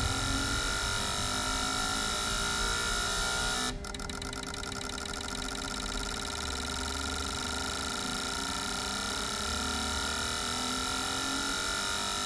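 Autool CT400 injector tester running a shifting speed test: fuel injectors clicking rapidly over a steady whine. About four seconds in the sound drops suddenly and changes to a faster, even pulsing that slowly grows louder, as the firing speed shifts.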